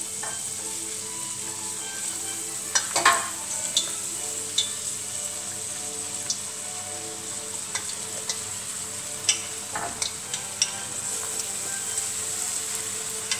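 Cartellate dough deep-frying in hot oil at about 170 °C: a steady sizzle with scattered pops and clicks, the sharpest about three seconds in and again near ten seconds.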